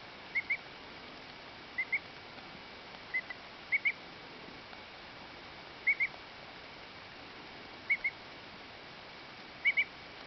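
Two-week-old duckling giving its contented 'happy peep': short, slightly rising high peeps in quick pairs, a pair every one to two seconds.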